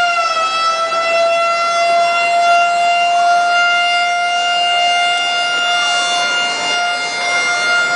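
Evacuation alarm siren sounding one loud, steady, continuous tone, with a fainter second siren slowly rising and falling behind it. It is the evacuation signal for a shipyard dry dock drill.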